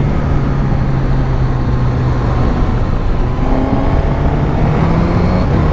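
2022 Suzuki GSX-S1000GT's inline-four engine running on the move, heard through a microphone inside a motorcycle helmet along with wind and road noise. The engine note drops a little early on and climbs again in the second half.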